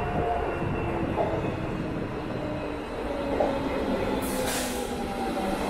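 TCDD E-64000 Marmaray electric commuter train pulling into the platform and slowing, its motors whining in several steady tones that slowly fall in pitch as it brakes, over a running rumble. A short hiss is heard about four seconds in.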